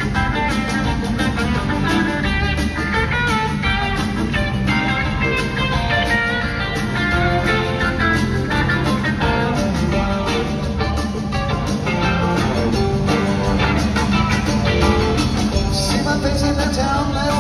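Live rock band playing in an arena, electric guitar over drums and percussion, heard from the stands with the hall's echo.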